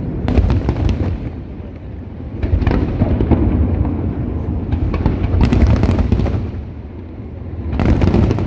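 Fireworks display: aerial shells bursting over a continuous deep rumble of booms, with sharp bangs and crackle in clusters, most densely near the middle and again near the end.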